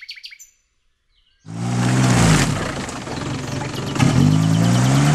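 Isuzu Trooper's engine revving up and down repeatedly as the 4x4 struggles while bogged down in deep mud, with a noisy churn of tyres and mud under it. It cuts in about a second and a half in.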